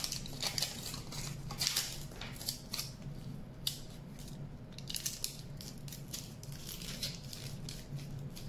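Aluminium foil crinkling and crackling in short irregular bursts as a foil-and-wire armature is handled and squeezed.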